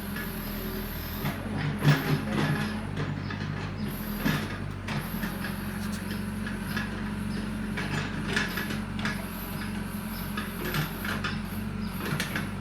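Child's ride-on sand excavator running: a steady motor hum with scattered clacks and knocks.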